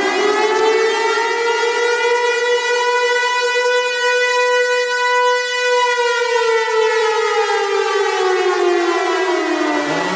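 Tornado warning siren wailing. Its pitch climbs to a peak about two seconds in, holds for a few seconds, then slides slowly down, and begins to climb again at the very end.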